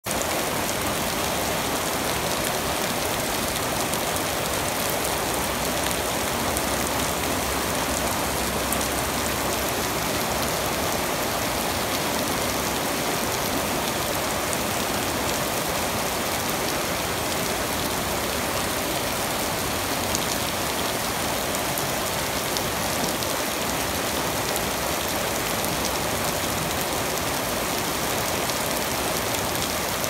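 Steady rushing of a swollen, muddy stream in flood, mixed with the patter of falling rain.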